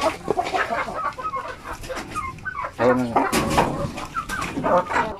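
Small flock of native chickens, hens with a gamefowl-cross rooster, clucking in a coop as a run of short calls, with one louder drawn-out call about three seconds in.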